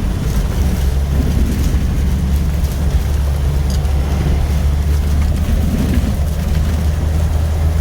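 Hurricane wind and heavy rain beating on a Jeep, heard from inside the cabin over a steady deep rumble.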